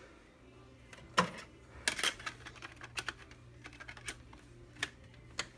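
Irregular sharp clicks and taps, about half a dozen, from a hand working the controls of a plastic boombox and stereo, over a faint low steady hum.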